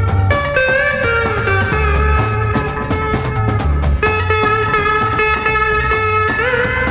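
Hindi film music with an electric guitar prominent, playing a bending melody over a low bass beat.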